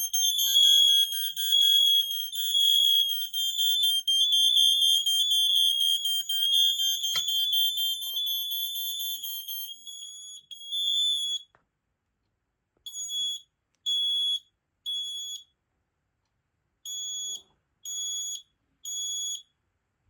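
Smoke alarms on a demo board going off, set off by testing the Fyrnetics 1285: for about the first ten seconds several high-pitched alarm horns beep at once, overlapping. They then drop out, leaving a single alarm sounding the three-beep pattern twice, three beeps, a pause, three beeps.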